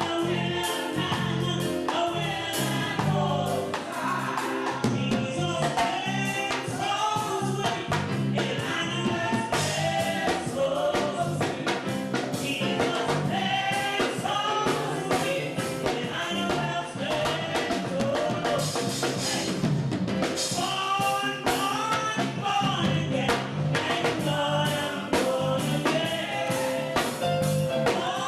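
Gospel music: voices singing a melody over a band with a steady beat and bass line.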